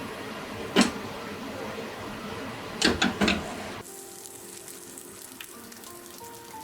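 Steady noise with a sharp knock about a second in and a quick run of three knocks around three seconds, then a sudden cut to soft background music with held tones.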